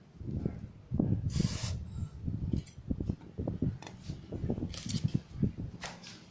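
An aerosol spray can sprays in a few short hissing bursts, the longest about a second and a half in. Irregular low thumps and rumbles from handling sound between them.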